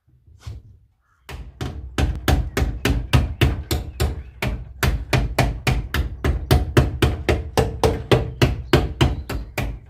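Hammer blows on the Trabant's bodywork metal, struck rapidly and steadily at about four a second, knocking a protruding edge back in so the new wing will fit.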